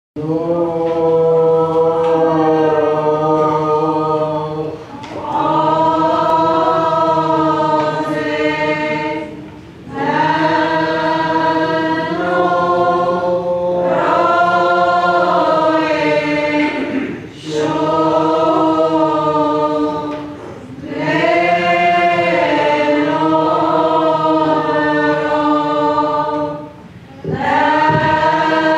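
Syrian Orthodox church choir singing a hymn in phrases of a few seconds each, with short pauses between them.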